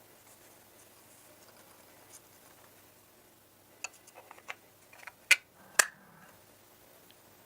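Small sharp clicks and taps of small parts being handled, scattered from about four seconds in and ending in two loud, sharp clicks half a second apart, over quiet room tone.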